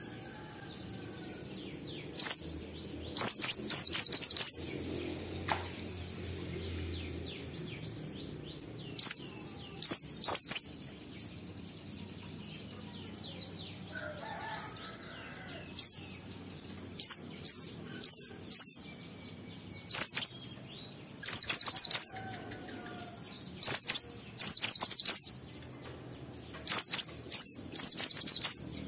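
White-eye (pleci) singing in the 'ngalas' style: repeated bursts of quick, high, downward-slurred chirps in groups of several notes, separated by short pauses.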